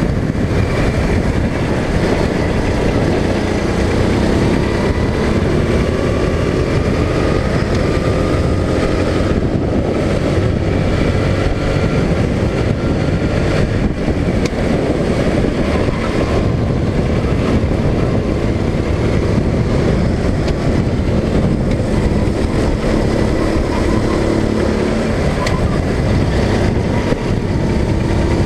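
Go-kart engine running at racing speed, heard from the driver's seat, its pitch rising and falling as the kart goes around the track.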